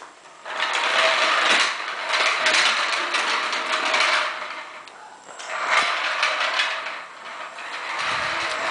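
Yellow plastic toy dog on wheels rolling across a tiled floor, its wheels and mechanism giving a continuous mechanical rattling whir. The whir breaks off briefly about 5 s in and again near 7 s.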